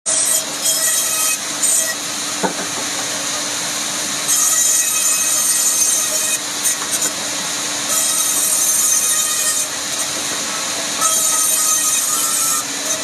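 A power saw running with a steady hum, cutting rubberwood in about four stretches of one to two seconds, each cut adding a hissing rasp over the motor.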